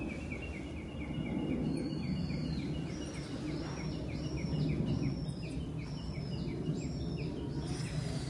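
Birds calling over a steady low background rumble. A fast run of short high chirps, about three a second, goes on until near the end. About three seconds in, a second, higher arched call joins, repeated roughly every half to one second.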